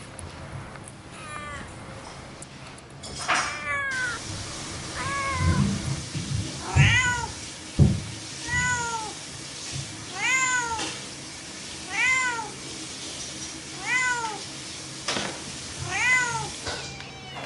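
A cat meowing over and over: about ten short, arching meows, one every one to two seconds. A couple of sharp low thumps come near the middle.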